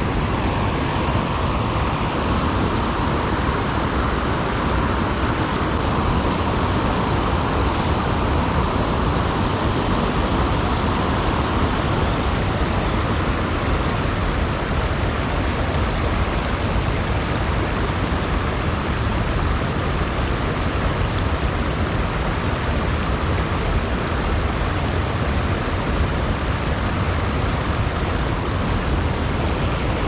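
Small creek's running water, a steady even rush of noise.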